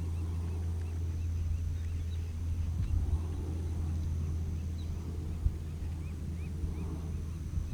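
Outdoor ambience: a steady low rumble with faint, short chirps of small birds scattered through it and one sharp knock about five and a half seconds in.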